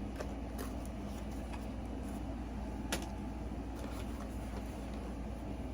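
A few faint clicks and taps of a boxed fragrance being handled, the clearest about three seconds in, over a steady low hum.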